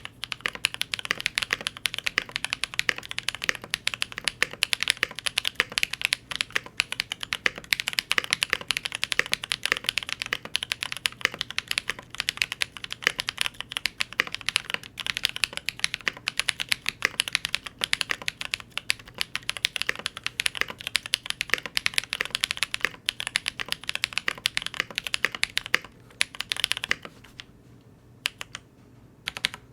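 Fast, continuous typing on a Cannon Keys Devastating TKL mechanical keyboard in a polished polycarbonate case, with YOK Holy Panda tactile switches, Whale PBT keycaps and PE foam between PCB and switches. The keystrokes stop for about two seconds near the end, then start again.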